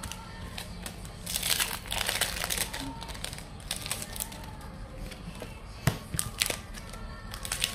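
Plastic-foil wrapper of a Pokémon booster pack crinkling and crackling while it is handled and opened, loudest for a second or two after about a second in, with a few sharp clicks near the end.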